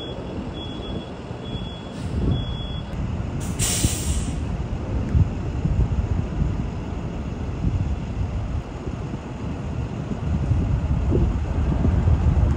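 Subway yard sounds: a run of short, high beeps in the first couple of seconds, then a sharp hiss of air released from train air brakes about three and a half seconds in, over a steady low rumble of trains.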